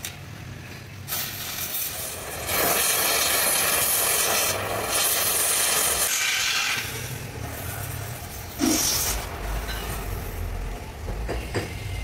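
Oxy-fuel cutting torch hissing against the steel of a truck fifth wheel plate, with a loud rush of gas from about two and a half seconds in that eases off around six seconds. A low steady hum follows, with a couple of sharp knocks near the end.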